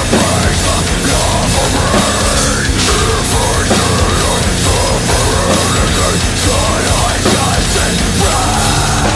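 Metalcore song played at full volume: a drum kit with Sabian cymbals hit hard in a steady, driving beat, under dense distorted band sound.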